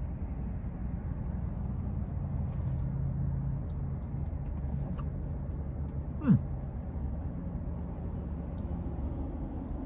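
Steady low hum of a parked car's cabin with the engine running. About six seconds in, one brief sound drops sharply in pitch.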